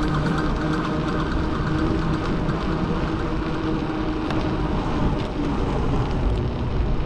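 Steady street traffic and road noise.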